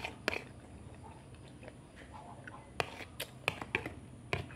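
Close chewing and mouth sounds of someone eating rice. A metal spoon clicks and scrapes against a plastic plate several times, mostly in the second half.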